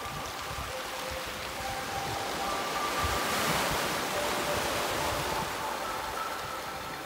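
Small waves washing in over a pebble beach, the surf swelling to a peak about three and a half seconds in and then easing.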